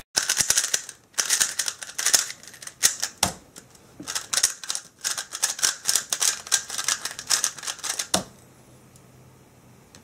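GAN 356 Air UM speedcube being turned at speed: dense runs of quick plastic clicking and clacking for about eight seconds, broken by brief pauses. It ends with one louder knock, after which it goes quiet.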